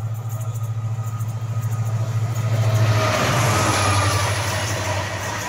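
Diesel locomotive hauling a goods train passes at speed. Its engine gives a deep, pulsing throb, with a rushing rumble that swells to a peak about halfway through as the locomotive goes by.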